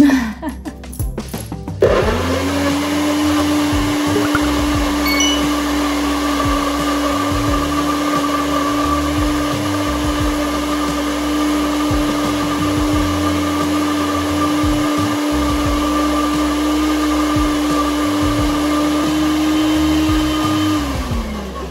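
Bullet-style personal blender running, blending a frozen spinach, pineapple and banana smoothie. After a few short knocks it starts about two seconds in with a quick rise in pitch, runs at a steady pitch, and winds down with a falling pitch just before the end.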